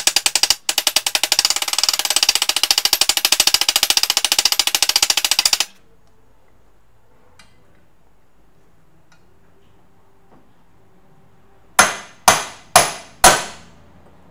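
Steel-headed hammer tapping rapidly on the rear wheel bearing in a VW bus's cast bearing housing, about ten taps a second, stopping abruptly after five or six seconds. Near the end come four hard, ringing hammer blows on a socket and extension, driving the old bearing parts out of the housing.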